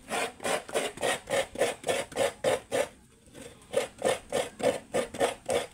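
Coconut meat being grated by hand from a half shell: a run of rhythmic rasping strokes, about four a second, with a brief pause around three seconds in before the strokes start again.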